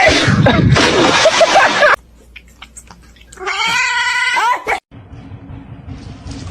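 Cat yowling: one drawn-out call with a wavering pitch, lasting over a second, about halfway through. It follows a loud, noisy stretch at the start.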